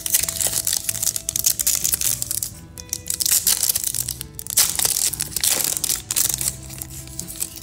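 Foil wrapper of a trading-card pack crinkling and tearing as it is pulled open by hand. The crinkling is thick for the first two seconds or so, then comes in short bursts. Background music plays under it.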